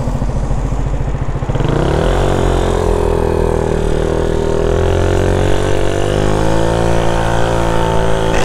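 Nova Motors GT4 scooter engine ticking over, then revving up as it pulls away about two seconds in and accelerating with a smoothly rising drone, without stutter: it is running cleanly on a replacement CDI ignition unit after a faulty one caused jerking and poor starting.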